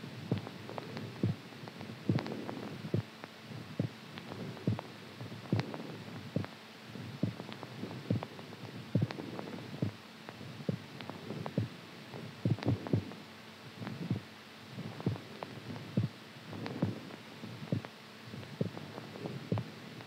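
Heartbeat: short, muffled low thumps, about two a second and somewhat uneven, over a faint steady hum.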